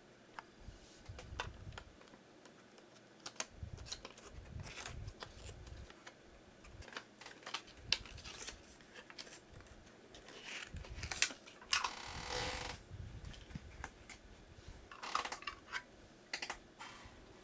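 Small model's packaging being opened and handled by hand: scattered light clicks, taps and rustles of cardboard and plastic, with a longer scraping rustle about twelve seconds in.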